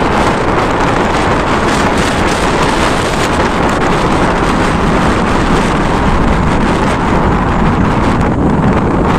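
A loud, steady rushing noise, spread evenly from deep to high pitch, with no distinct events.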